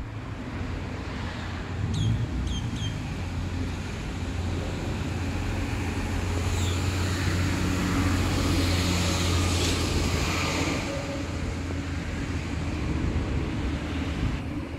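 Steady hum of road traffic that swells as a vehicle passes midway through, with a few short bird chirps about two seconds in.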